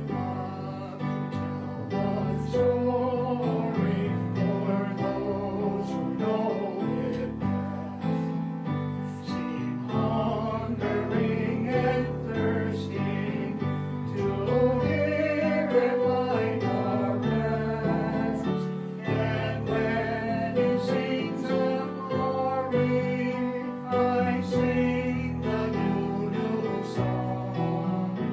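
A hymn sung with instrumental accompaniment, playing steadily throughout.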